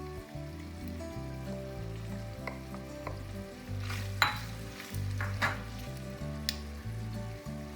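Background music over faint sizzling from food frying in a pan, with a few sharp clinks of a utensil against the pan in the second half as the food is stirred.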